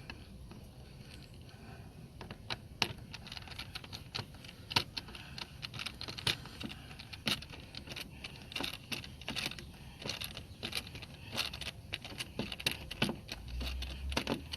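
Irregular small clicks and scrapes of a screwdriver and needle-nose pliers working a door-panel screw that spins in place instead of backing out.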